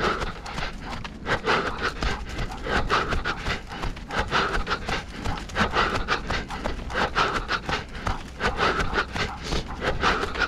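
A runner breathing hard and rhythmically, a loud breath about every second and a half, over quick, even running footsteps.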